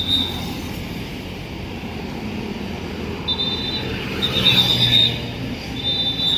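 Street traffic: motorbikes and cars passing while a coach pulls slowly out of a depot gate, swelling louder about four seconds in. A shrill trilling whistle sounds in short blasts, at the start and three more times in the second half.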